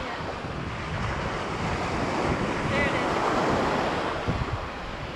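Ocean surf washing onto the beach, with wind buffeting the microphone; the wash swells louder in the middle and eases off near the end.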